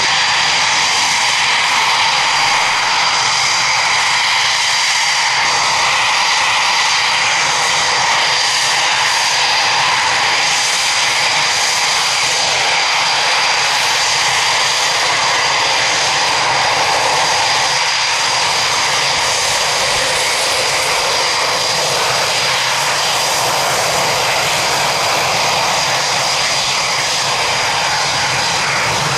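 Eurofighter Typhoon's twin EJ200 turbofan jet engines running, a loud steady jet noise with a high whine held at one pitch.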